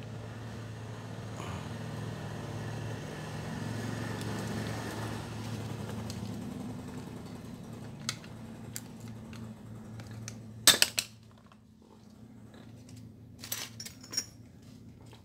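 Clinks and knocks of metal pump parts being handled and set down on a bench: a few sharp clicks, the loudest cluster about eleven seconds in, and another group near the end. A steady low hum runs underneath and drops away after the loud clinks.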